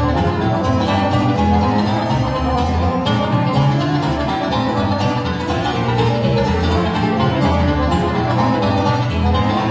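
Live Romanian lăutărească folk music played by an instrumental band, steady and continuous.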